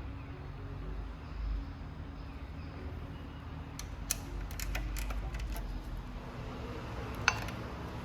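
Steady low mechanical hum, with a run of light clicks and rattles about halfway through and one sharp click near the end.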